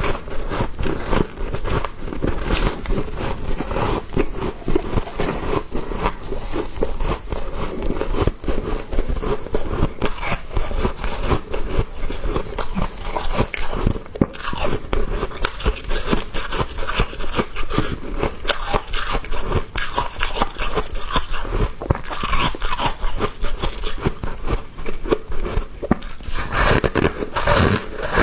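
A person biting and chewing small soft, powdery ice chunks close to the microphone: a dense, irregular run of crisp crunches and crackles.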